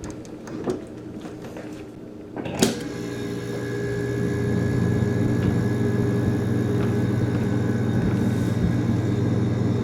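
1982 GE refrigerator compressor starting up: a sharp click about two and a half seconds in, then a steady low hum that builds over a couple of seconds and holds, with a faint high steady tone alongside.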